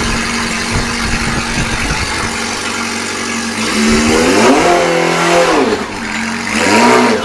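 Motorcycle engine idling, then revving up and dropping back twice as the bike pulls forward at low speed.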